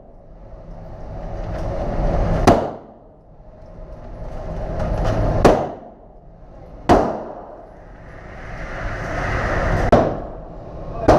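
Five gunshots fired at irregular intervals on an indoor shooting range, each sharp crack followed by a short echo, with a hiss swelling between shots.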